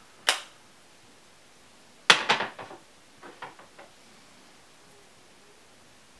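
A single short spritz from a Dior Sauvage Eau de Toilette perfume atomizer onto a paper test strip, then about two seconds later a sharp clatter and a few softer clicks as the bottle is handled and set down on the shelf.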